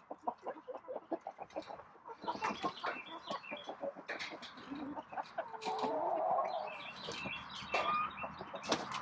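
Chickens clucking in many short, quickly repeated notes.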